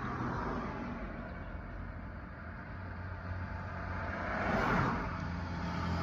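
A vehicle passing outside, heard from inside a car: a broad rushing sound that swells to its loudest about four and a half seconds in, then fades, over a steady low hum.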